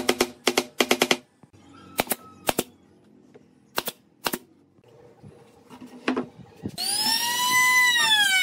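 Rapid taps of a wooden mallet on a pine block being driven into a glued joint, then four sharp shots from a pneumatic brad nailer in two close pairs. Near the end a compact trim router starts up with a whine that rises, then sags as it cuts into the wood.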